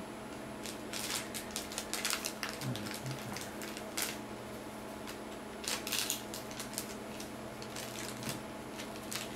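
Clear plastic packaging crinkling and crackling as hands handle it, in spells of crackle about a second in, around six seconds and near the end.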